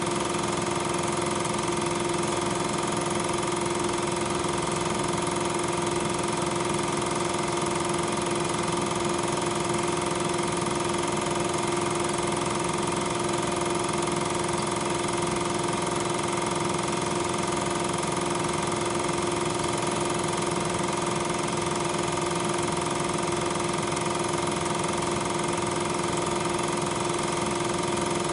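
Film projector running: a loud, unchanging mechanical hum with several steady tones that never varies.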